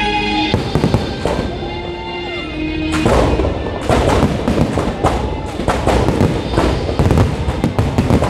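Aerial fireworks bursting overhead at close range: a few bangs at first, then a dense, rapid string of bangs from about three seconds in. The display's accompanying music plays underneath during the first few seconds.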